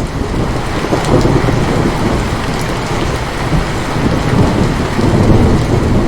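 Heavy rain falling steadily, with a deep rolling thunder rumble that swells and eases throughout.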